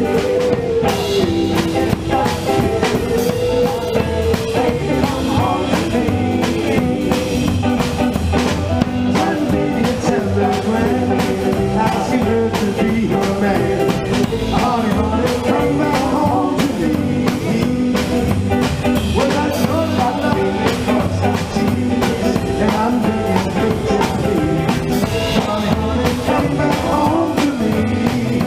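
Live band playing, with drum kit and electric guitar and a singing voice over them.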